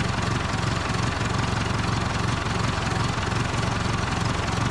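Backhoe loader's engine running steadily at idle.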